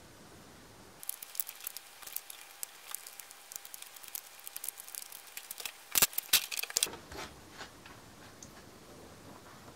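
Clicking and rattling of a cross wrench on the wheel nuts and plastic wheels of an HPI Savage XS Flux RC truck as the wheels are taken off, starting about a second in, with two louder knocks about six seconds in.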